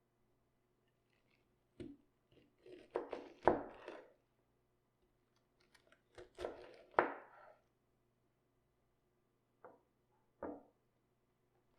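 Knife cutting through cabbage on a cutting board: a single knock, two bursts of crunchy cuts, then two short knocks near the end.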